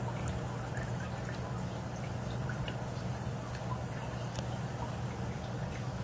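Aquarium water trickling and dripping steadily, with small scattered drip sounds, over a constant low hum.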